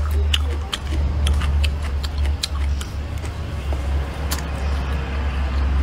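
Close-miked chewing of a mouthful of food: irregular wet clicks and crunches over a steady deep rumble.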